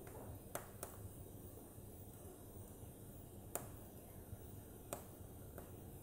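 Wood logs burning in a fireplace: a quiet, low rumble of flame broken by about five sharp crackles and pops, the loudest a little after three and a half seconds in.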